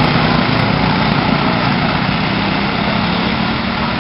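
Small racing lawn mower engines running out on the track, a steady engine drone with a low hum, getting slightly quieter.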